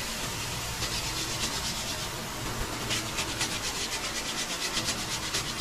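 Hand sanding of body filler on a car's rocker panel: quick, even back-and-forth strokes of sandpaper on the cured filler, about five a second, getting louder about halfway through.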